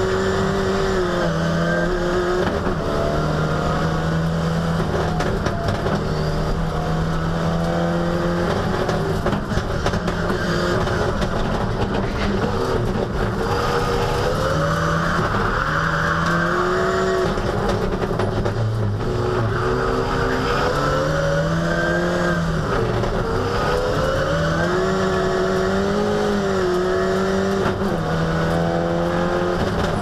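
Ford Sierra Cosworth's turbocharged four-cylinder rally engine heard from inside the cabin at full attack, its revs climbing and dropping over and over through gear changes and braking. A brief rushing hiss rises over it about halfway through.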